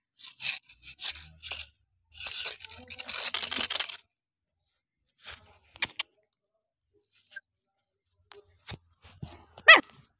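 Dry straw and twigs crackling and rustling underfoot in dense bursts for about four seconds, then a few scattered scuffs and clicks, and one short high squeak near the end.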